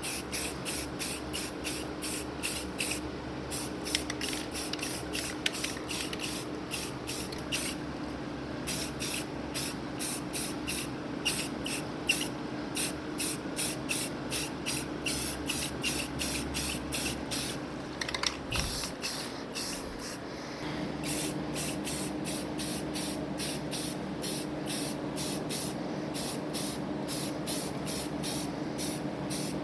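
Rust-Oleum camouflage aerosol spray paint can hissing in short, rapid bursts, about three a second with a few brief pauses, laying down a khaki base coat. A steady low hum runs underneath.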